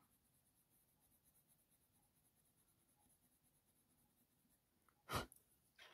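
Faint, quick scratching of a Faber-Castell Polychromos colour pencil worked with firm pressure over hot-press watercolour paper, blending the layers. About five seconds in there is a single sharp click.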